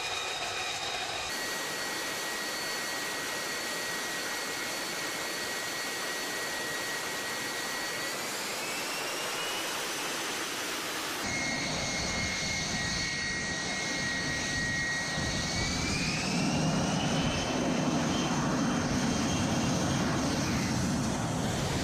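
F-35B's F135 turbofan running on the deck with a high, steady turbine whine. Its pitch rises as the engine spools up about eight seconds in. After a break the whine comes back and spools up again near the middle, with a deeper rumble growing toward the end as it powers up for takeoff.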